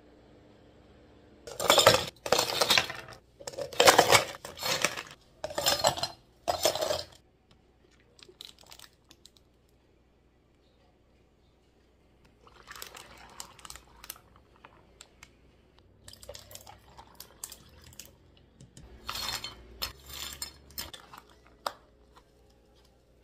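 Ice cubes clattering into plastic cups in five or six loud scoops over the first several seconds. Quieter pouring and handling sounds follow, with a few more clatters near the end.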